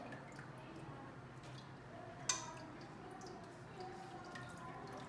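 Faint wet handling sounds of food being lifted by hand in a plastic bowl, with one sharp click a little over two seconds in.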